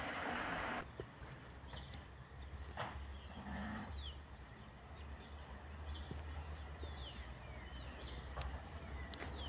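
A loud hiss cuts off under a second in. Then birds chirp with short, high, falling calls over a faint, steady low rumble.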